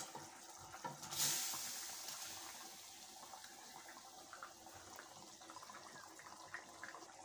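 Fried prawn balls dropped from a plate into a pan of boiling curry gravy: a few soft plops, then a splash about a second in that fades away. After that the gravy bubbles faintly.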